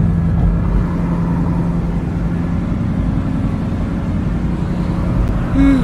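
Bugatti Chiron's quad-turbo W16 engine running steadily at low speed, a constant hum with low rumble heard from inside the cabin.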